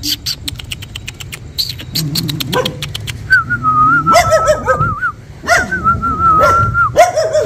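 A person whistles in wavering, held tones to a dog while the dog answers with several sharp barks and yelps, the last one sliding down in pitch near the end.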